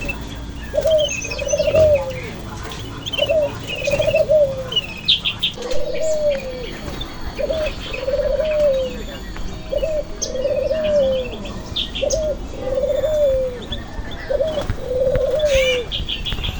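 An empo jeruk bird cooing over and over: about a dozen low calls a little over a second apart, each a short note followed by a longer trill that falls at its end. Small birds chirp faintly higher up.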